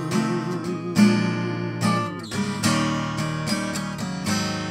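Solo acoustic guitar playing a short instrumental blues passage, with chords strummed and picked and a fresh chord or note struck every half-second to second.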